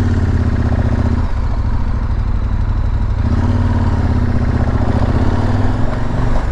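KTM 1190 R's V-twin engine running as the motorcycle rides along. The engine note drops away about a second in and picks up again around three seconds.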